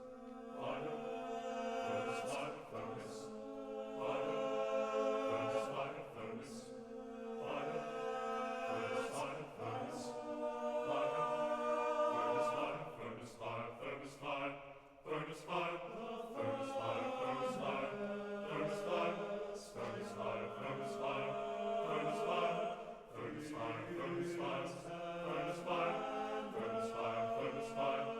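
Tenor-bass (men's) choir singing in chant-like harmony over a held low note.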